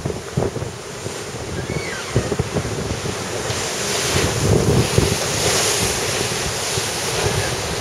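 Wind buffeting the microphone over the rush of sea water around a sailboat under way, swelling louder partway through.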